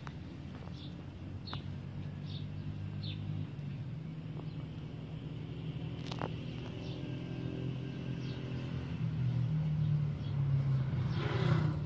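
Low, steady engine hum, with a few short high chirps in the first few seconds and a brief hiss near the end.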